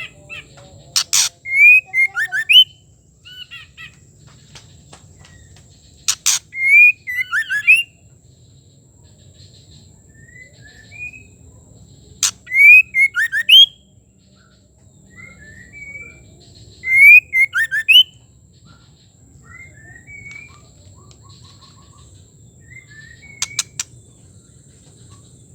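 Female white-rumped shama singing: short, loud whistled phrases, each led by a sharp click, repeated every five or six seconds, with softer single notes in between.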